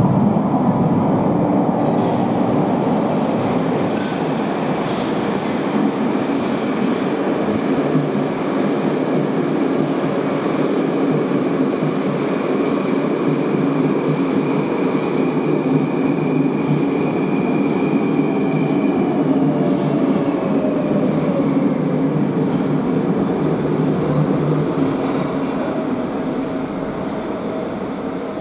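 Moscow Metro train running on the Big Circle Line, a steady loud rumble of wheels and traction motors. A falling whine comes in about two-thirds of the way through, and the noise eases off near the end as the train slows.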